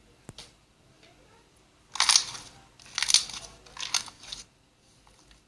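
Slime being pressed and worked, crackling and crunching in three short bursts about a second apart.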